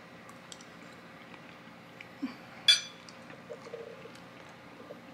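Metal spoon and fork clinking on a plate during eating: one sharp ringing clink a little after the middle, with a few faint taps and clicks around it.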